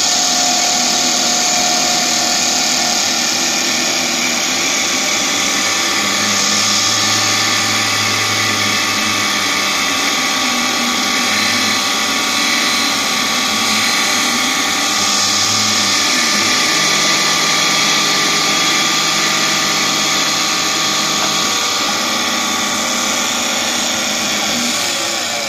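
CNC bead-making wood lathe running, its spindle turning a wooden gourd while it is shaped: a steady, high machine whine with a lower hum that comes and goes and changes pitch a few times.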